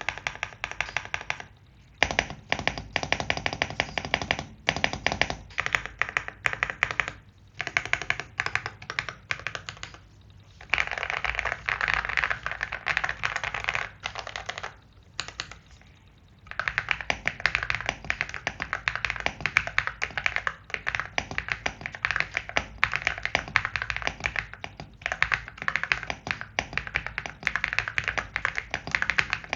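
Typing on an AULA S75 Pro mechanical keyboard: rapid key clicks in runs broken by short pauses, with long stretches of fast, continuous typing in the second half.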